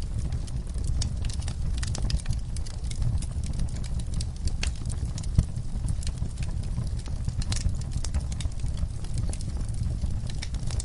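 Wood fire in a fireplace crackling, with irregular sharp pops and snaps over a steady low rumble of the flames; one louder pop comes about halfway through.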